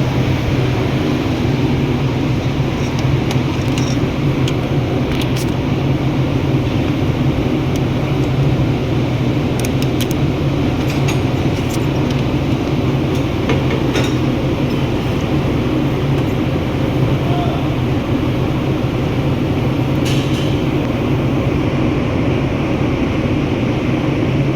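Steady low mechanical hum and drone, unbroken, with a few faint clicks and taps scattered through it.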